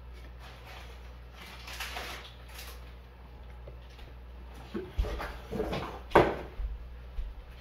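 Puppies nosing and pawing at a cardboard box on a hard floor: soft rustling, then a cluster of sharper scrapes and bumps about five seconds in, the loudest just after six seconds.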